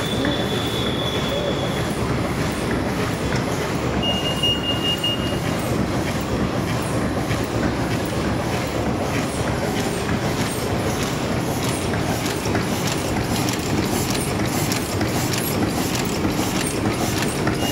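Jain JPC-H100 fully automatic high-speed paper cup making machine running, a steady dense rattling clatter of its cams and forming stations. A brief high steady tone sounds twice, at the start and about four seconds in.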